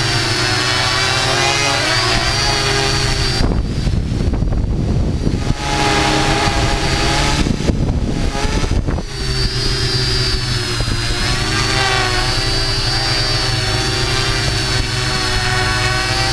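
Multirotor drone's electric motors and propellers whining steadily, heard from the drone itself, the pitch wavering as it flies. From about 3.5 to 9 seconds in the sound turns rougher and noisier, then the steady whine returns.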